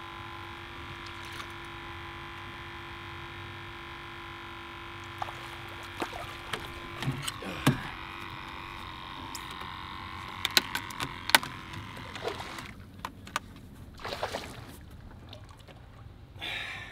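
Water splashing and sloshing as a hooked snook thrashes at the surface and is reeled in and lifted from the water. A steady whine with several tones runs through the first seven seconds, then sharp clicks and splashes follow near the end.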